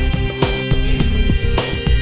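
Background music with a steady beat: drum hits over sustained instrumental tones.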